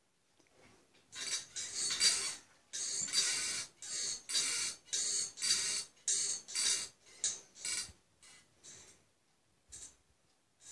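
Metal-framed baby rocker squeaking and rattling in a series of short, irregular bursts as it moves, dying away over the last few seconds.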